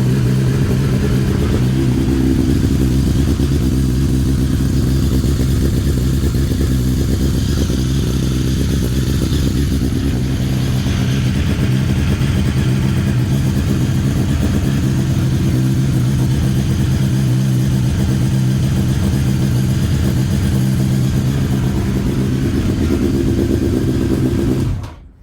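Honda CBR954RR (SC50) inline-four engine idling steadily just after a cold start near 0 °C, on an engine with the piston slap and cylinder scoring of its AluSil bores. It is switched off near the end and cuts out suddenly.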